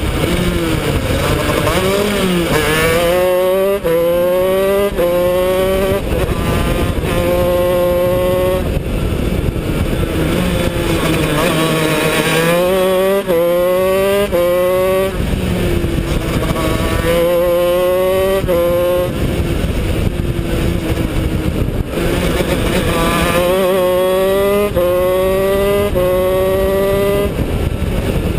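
Shifter kart's Honda CR125 two-stroke single-cylinder engine at race pace, its pitch climbing and snapping down at each quick upshift. It pulls through the gears in three runs, easing off between them.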